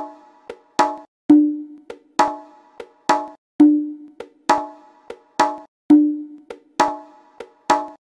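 Music built on a sparse rhythm of sharp, pitched percussion strikes, one to two strong hits a second with lighter taps between; some hits leave a lower note ringing briefly.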